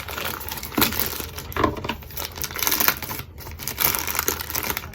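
Parcel packaging crinkling and rustling irregularly as it is opened by hand, with some tearing.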